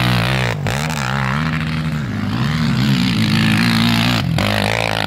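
Sport quad (ATV) engines revving close by, the pitch rising and falling with the throttle. The sound breaks off briefly about half a second in and again near the end.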